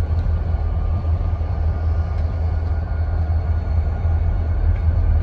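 EMD SD40-2-series diesel locomotive running, its engine giving a steady low rumble with faint steady higher tones above it.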